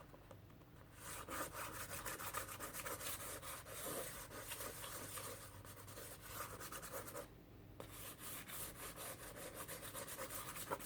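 Chalk pastel stick rubbed rapidly back and forth on gesso-primed paper: a dense, scratchy rubbing, with a short pause about seven seconds in.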